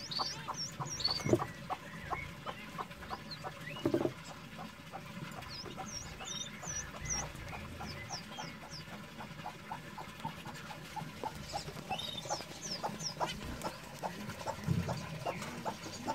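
A hen clucking softly and steadily, about five short clucks a second, with the high, quick peeps of golden pheasant chicks coming in small groups. A few louder, lower sounds stand out: about a second in, at four seconds, and near the end.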